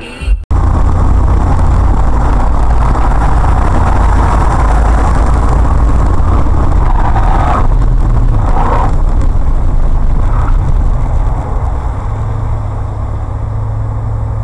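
Loud, steady rumble of road and engine noise inside a moving car, as picked up by a dashcam microphone, with a brief rise in hiss about eight seconds in.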